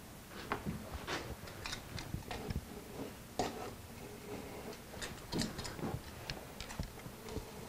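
Utility knife scoring and slicing thin cherry veneer along a metal straightedge: irregular light scratches and ticks as the blade is drawn through the wood in short strokes.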